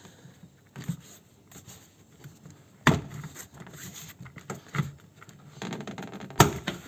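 Plastic door-card clips popping out of a Toyota Land Cruiser's rear steel door as the trim panel is prised off by hand: two sharp snaps about three and a half seconds apart, with lighter knocks and rustling of the panel between.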